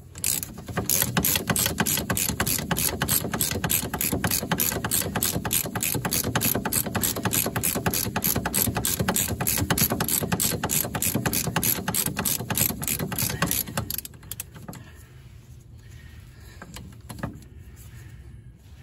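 A ratchet wrench clicking rapidly and evenly as it turns a fastener on the car's front suspension. The clicking stops about 14 seconds in, leaving only a few faint knocks.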